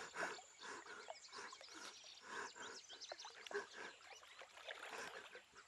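Faint outdoor nature ambience with scattered short bird chirps.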